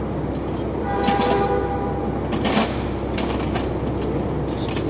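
A few sharp metal clinks as a cover is taken off an engine under overhaul, over a steady low machine hum, with a brief squeal about a second in.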